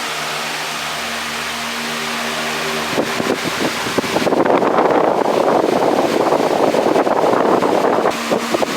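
A 60 cm, 200 W wall fan running, its motor humming steadily under a wide rush of air. About three seconds in, irregular clicks start. These build into about four seconds of loud, dense rattling that stops suddenly, followed by a few last clicks before the steady fan hum returns.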